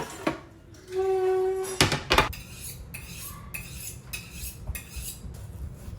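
Dishes and metal cutlery clinking and knocking against each other in a string of short clatters, some with a brief high ring.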